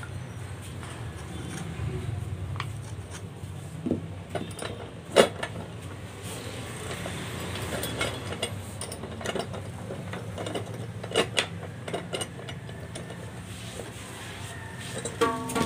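Scattered clicks and knocks of hands handling harmonium parts, with one sharp knock about five seconds in. Near the end a harmonium reed begins to sound a steady note.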